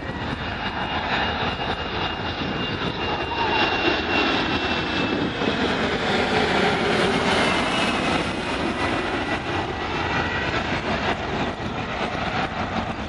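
Twin-turbofan regional jet on landing approach passing low overhead, gear down. Its engines make a rushing noise with a high whine that slowly falls in pitch, loudest about halfway through.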